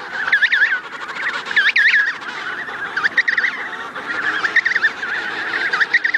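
Many penguins calling at once, short high arched calls overlapping in busy clusters, thickest about half a second in and near two seconds.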